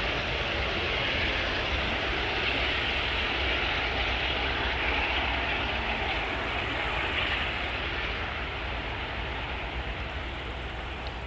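Airbus A380's four Rolls-Royce Trent 900 jet engines running, a steady jet rush and rumble that slowly fades over the last few seconds as the aircraft moves away.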